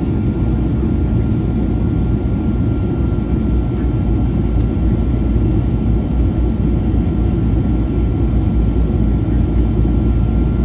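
Steady cabin noise inside a Boeing 737-800 airliner in flight: an even low rumble of airflow and engines, with a faint high steady whine over it.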